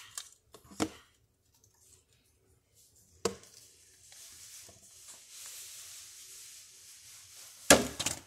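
Plastic Nerf dart pistol being handled: a single sharp click about three seconds in, faint rustling afterwards, and a louder short knock near the end.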